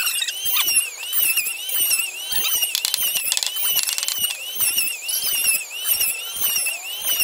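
Claw hammer tapping nails into thin wooden strips laid across solid-wood planks, in short irregular knocks. Under it runs a continuous high, rhythmic chirping, about three chirps a second.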